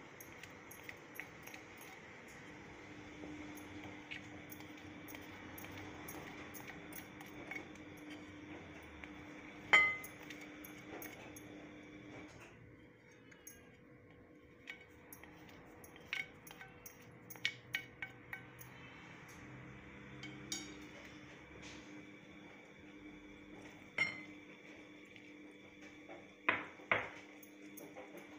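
Scattered clinks and taps of a plate and utensils against a glass mixing bowl as dry spices are added to gram flour. One sharp clink about ten seconds in is the loudest, and a quick pair comes near the end. A faint steady hum runs underneath.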